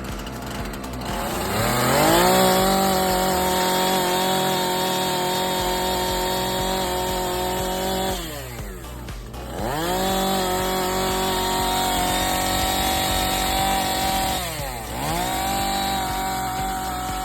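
Husqvarna 445 e-series X-Torq two-stroke chainsaw engine revved up to full throttle and held at a steady high pitch. It drops back toward idle twice, about halfway through and near the end, and speeds up again each time.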